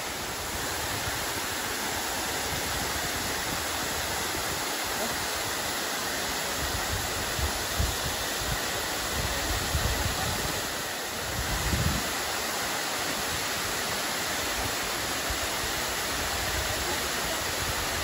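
Diyaluma Falls' cascade pouring over rock into its pool, a steady rushing of water, with a few brief low rumbles about eight and twelve seconds in.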